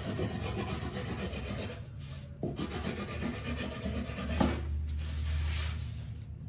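Rapid back-and-forth rubbing of a paperweight over brown kite paper on a template, burnishing a star pattern into the paper (the 'gutai' or kaudi). The rubbing breaks off briefly a little after two seconds, and there is a single knock just past four seconds.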